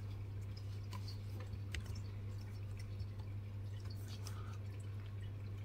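A few faint, scattered clicks of laptop keys being pressed over a steady low hum.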